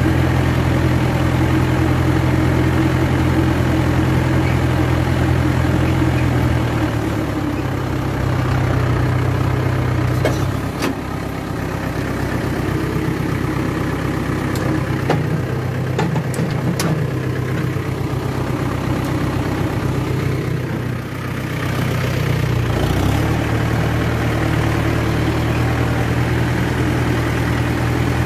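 Mahindra 575 DI tractor's four-cylinder diesel engine running steadily under load. Its note drops about ten seconds in and again about twenty seconds in, then settles back. A few sharp metallic clicks come in the middle as a lever by the seat is worked.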